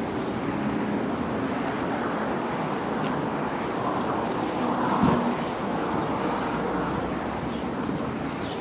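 Steady outdoor background noise, like traffic or wind against the microphone, with a brief knock about five seconds in.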